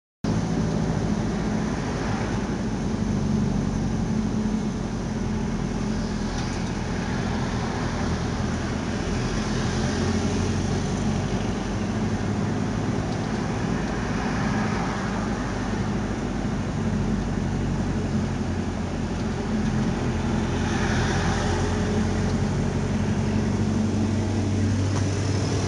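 Steady engine hum and road noise heard inside a moving car's cabin, swelling now and then.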